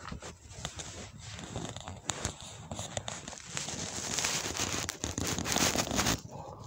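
Crackling, rustling handling noise of plastic close to the microphone, with scattered clicks, getting denser about four seconds in and dropping off shortly before the end.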